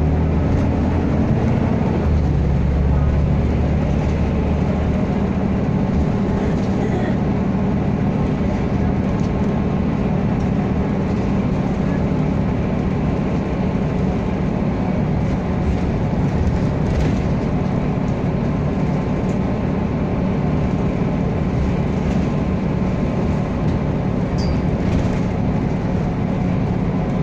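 Volvo B7RLE bus's rear-mounted six-cylinder diesel engine running, heard from inside the passenger cabin as a steady low drone with road noise, its note shifting a couple of seconds in.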